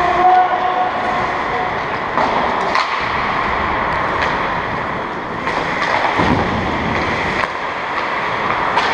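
Ice hockey game sound in an indoor rink: a steady rush of skates and hall noise, with a few sharp knocks of sticks and puck scattered through it and a brief shout near the start.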